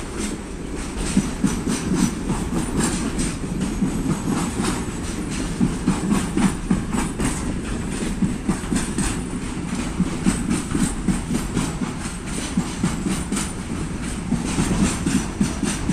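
A container freight train of loaded intermodal flat wagons rolling past at close range: a steady rumble of wheels and wagons, with frequent sharp clacks of the wheels on the rails.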